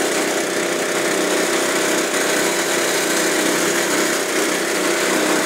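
UTV's small engine running steadily as it drives, with an even hiss over it.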